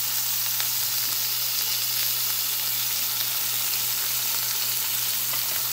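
Beef rump roast searing in beef tallow in a hot pan: a steady sizzle with a few small pops. Under it runs the steady low hum of the stove's range hood fan.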